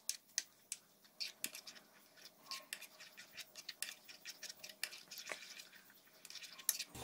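Plastic spoon stirring yogurt into coarsely ground spices in a plastic bowl: faint, irregular soft clicks and scrapes.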